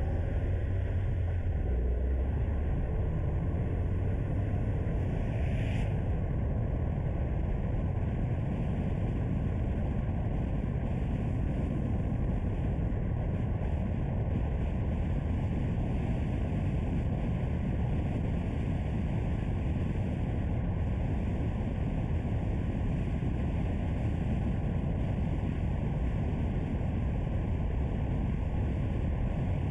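A car driving: a steady low rumble of road, engine and wind noise, with a brief click about six seconds in.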